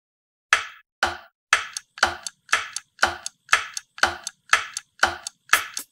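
Sharp, clock-like ticks at an even pace of about two a second, starting about half a second in.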